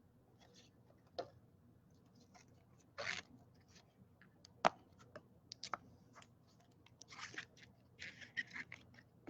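Faint, scattered clicks and brief scraping rustles of trading cards being handled and shuffled.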